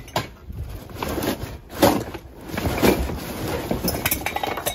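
Cardboard boxes being pulled and shifted by hand out of a packed pile, rustling and scraping, with several knocks as things bump against each other.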